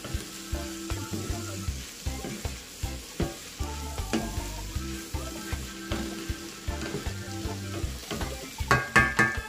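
Cabbage, bell peppers and shrimp sizzling in a skillet while a spoon stirs them in repeated scraping strokes. A few sharp knocks against the pan near the end.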